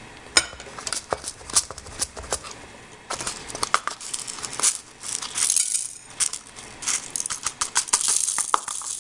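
Whole peppercorns being poured into a pepper grinder's chamber: scattered clicks at first, then dense runs of rattling, with a short pause about two-thirds of the way through.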